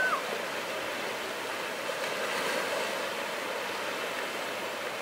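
Sea surf: a steady wash of breaking waves that swells slightly about halfway through.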